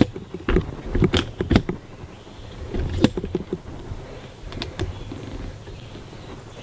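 Handling noise from the camera being moved and repositioned: a series of sharp knocks and clicks with rubbing, bunched in the first two seconds, more about three seconds in, and a few fainter ones later.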